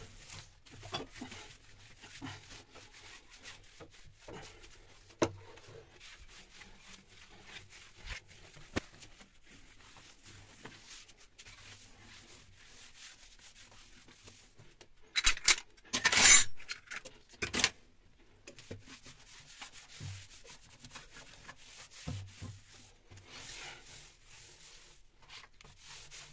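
A cloth rubbed by hand over glazed ceramic wall tiles: a soft, continuous wiping rub with a few light knocks. About fifteen seconds in comes a louder, harsher burst of noise lasting two or three seconds.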